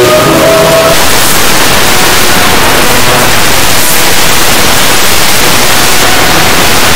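Audio turned up so far that it is clipped and distorted into a loud, steady wall of static-like noise. Traces of the song's music fade out in the first second.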